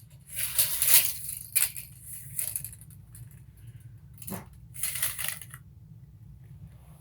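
Steel tape measure blades being pulled out and let run back in, a metallic rattle in short bursts of about a second each, with a sharp clack about four seconds in.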